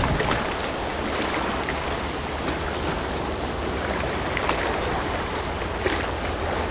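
Sea waves washing on a rocky shore, a steady hiss with a low rumble of wind on the microphone.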